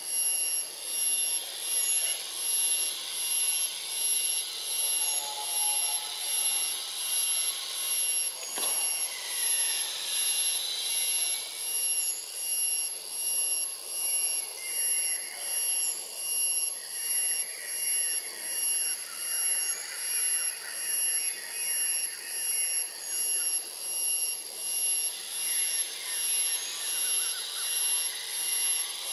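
Shrill insect chorus: a steady high-pitched drone at several pitches that swells and fades about once a second. Faint, softer calls come and go in between.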